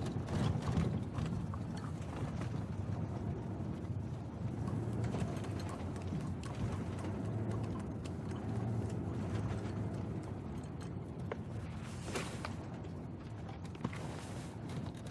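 Low rumble inside the back of a moving van, with frequent small clicks and rattles.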